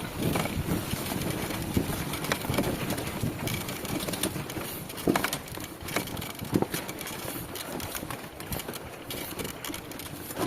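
Honda trail motorcycle engine running at low revs, with scattered knocks and clatter.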